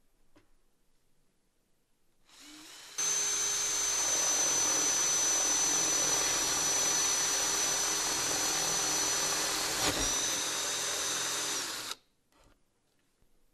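Cordless drill boring into a wooden board with a twist bit. It starts about three seconds in, runs steadily at full speed with a high motor whine, dips briefly near the end, then cuts off suddenly.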